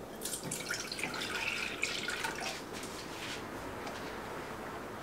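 Milk pouring from a plastic measuring cup into a small stainless-steel saucepan: a trickling splash that stops about two and a half seconds in.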